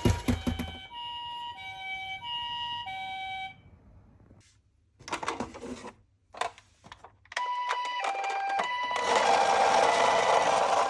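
Toy ambulance's electronic hi-lo siren, the Japanese two-tone "pee-po" pattern, alternating between a high and a low tone about every 0.6 s. It stops for a few seconds while clicks and rattles are heard, then starts again about seven seconds in, with a steady whirring noise joining it near the end.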